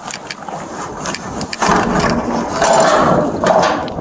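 A padlocked dumpster's steel lock bar and lid being forced and bent back by hand, with metal creaking and clanking that grows louder about one and a half seconds in.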